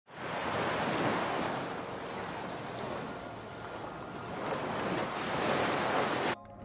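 Ocean surf washing onto a beach, a steady rush of breaking waves that swells and eases, cutting off suddenly near the end.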